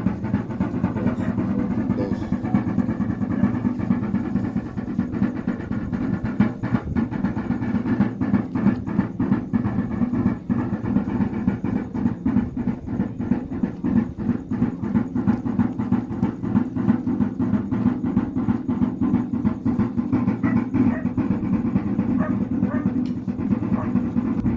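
Wayuu kasha drum beaten with sticks in a fast, steady, unbroken rhythm of yonna dance music.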